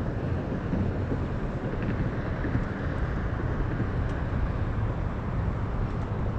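Steady wind noise on the microphone, a low rumble and hiss, with a few faint ticks.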